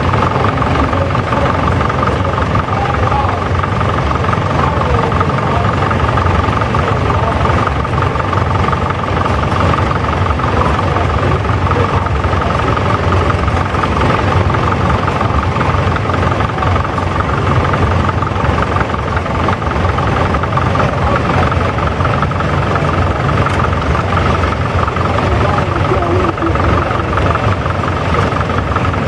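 Several antique farm tractor engines running steadily at low speed as a line of old tractors drives slowly past.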